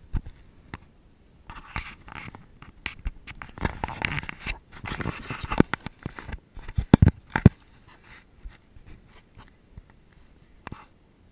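Pembroke Welsh corgi puppies pushing against and scrabbling at a small action camera on the floor: close scraping and scratching with sharp knocks on its housing. It is busiest in the middle, with a few loud knocks about seven seconds in, then only light scratches and ticks.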